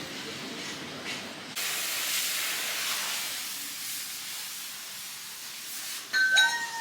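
A steady hiss starts suddenly about a second and a half in and slowly fades. Near the end comes a short, high, sliding tone, the loudest moment.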